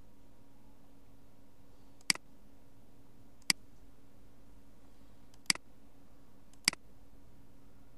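Four sharp computer mouse clicks, a second or two apart, over a faint steady hum.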